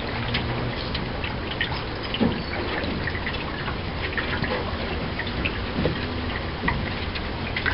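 Water dripping and lapping around a Grumman aluminium canoe as it is paddled, with scattered small drips and splashes from the paddle over a steady low wind rumble.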